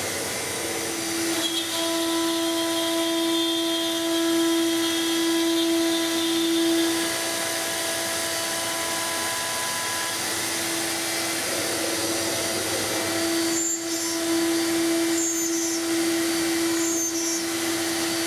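Twin routing spindles of an AXYZ 4010 CNC router running and cutting sheet material: a steady motor hum over a broad cutting and rushing noise. The hum fades for a few seconds in the middle and then comes back.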